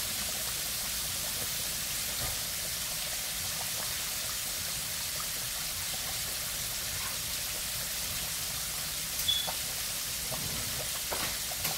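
Chicken deep-frying in hot oil in an enameled cast-iron Dutch oven: a steady sizzling crackle of bubbling oil, with a short clink about nine seconds in.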